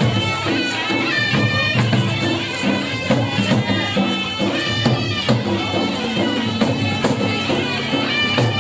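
Loud traditional folk music: a reedy wind instrument plays a continuous, nasal melody over steady drumbeats.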